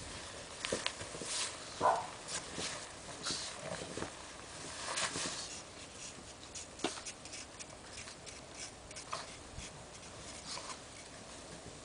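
A pug and a person moving in snow: scattered short crunches and scuffs, with a brief whine from the pug about two seconds in.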